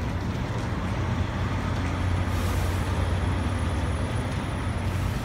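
Steady low rumble of city street traffic, with a short hiss about two seconds in.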